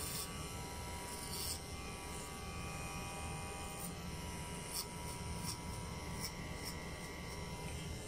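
Electric hair clipper running steadily, trimming hair at the temple and sideburn, with a few faint ticks.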